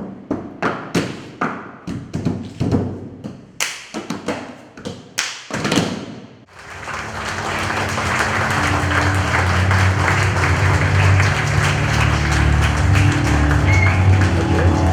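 Sharp struck percussive hits, about two or three a second in an uneven rhythm, each with a short ringing decay. About six and a half seconds in they give way to a dense electronic drone with steady low tones that swells up and holds.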